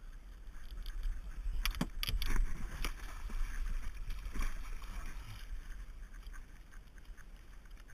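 A hooked largemouth bass thrashing and splashing at the water's surface during the fight, with a cluster of splashes about two seconds in and another a little later, over a steady low rumble.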